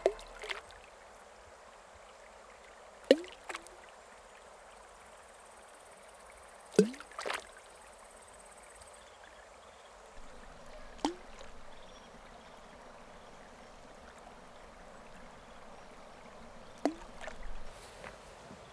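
Small drops or pebbles plopping into still pond water, a sharp plop every few seconds with a short falling pitch, often followed by a smaller second plop.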